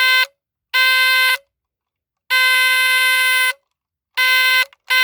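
Battery-powered early-1970s Chain Burglar Alarm sounding a harsh, steady-pitched buzz in five separate blasts of uneven length, the longest over a second. It is set off by tugging on its door chain.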